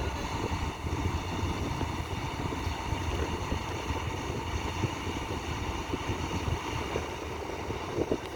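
An excavator's diesel engine running steadily with a low rumble, with no hammer blows.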